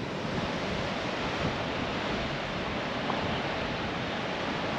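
Steady rushing wash of ocean surf breaking on a beach.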